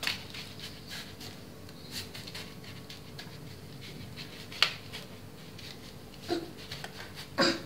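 A metal spoon and fingers press and scrape crushed biscuit crumbs into a metal cake frame: soft scrapes and small clicks, with one sharper tap about four and a half seconds in. Near the end come two short high vocal sounds from a young child.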